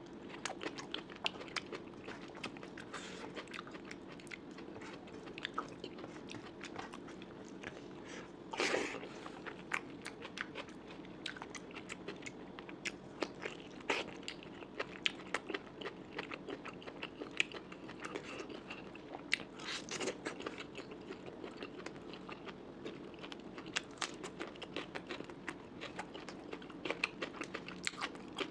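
Close-miked chewing and biting of curry and rice, a steady run of many small sharp clicks and smacks with a louder crunch about eight seconds in, over a faint steady hum.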